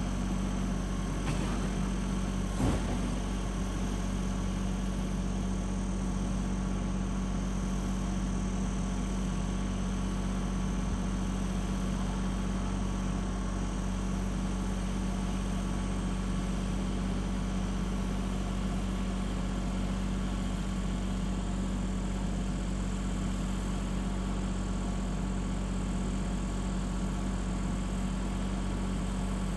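Tractor engine running steadily at an even speed, with a single sharp knock about two and a half seconds in.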